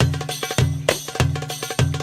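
Darbuka (derbak) goblet drum playing a steady Arabic rhythm: deep, ringing dum strokes about every 0.6 seconds, with sharper tek strokes between them.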